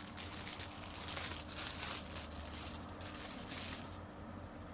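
Plastic packaging crinkling and rustling as a cable is unwrapped, with irregular crackles that die down about four seconds in.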